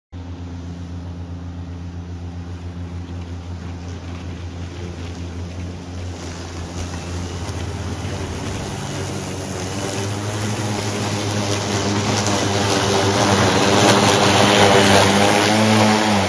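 Two cordless battery lawn mowers, an EGO Select Cut XP and a Ryobi 40V HP Crosscut, both dual-blade, running together: a steady motor hum with the swish of blades chopping tall, thick grass, growing louder as the mowers come closer.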